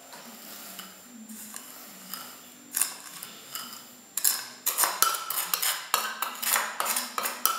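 Kitchen bowls and utensils clinking while sugar is added to whipped egg whites: a few soft sounds at first, then from about four seconds in a quick run of sharp clinks, several a second.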